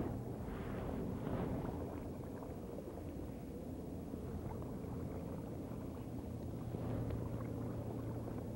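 Canoe paddle working in lake water: faint splashes and drips from the blade at a few moments, over a steady low hum and background noise.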